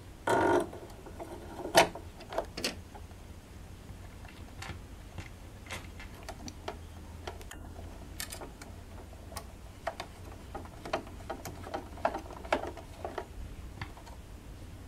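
Metal needle plate of a Jaguar 592 portable sewing machine being set back onto the machine bed by hand: scattered light clicks and taps of metal on the machine, with one sharper click about two seconds in.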